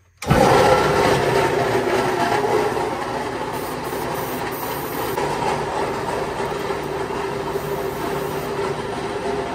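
A machine starts suddenly and runs on steadily and loudly, with a constant hum under a noisy rush.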